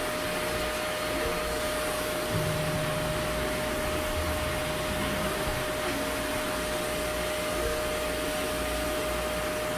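High-velocity pet dryer blowing a steady rush of air through its hose and nozzle into a cat's damp coat, its motor giving a constant whine.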